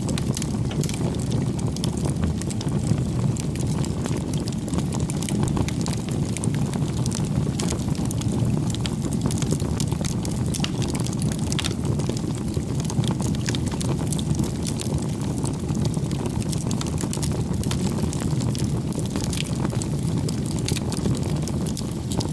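Wood fire crackling: a steady low rush of flames with many small, sharp pops and snaps throughout.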